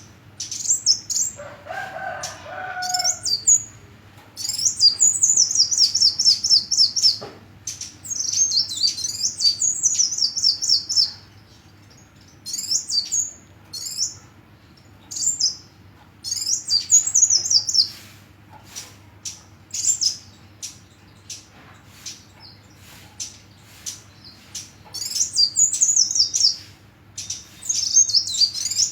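Sunbird (the bird Indonesians call 'kolibri') singing: high, rapid twittering trills in phrases of a second or two, repeated with short pauses. A lower, shorter call comes about two seconds in.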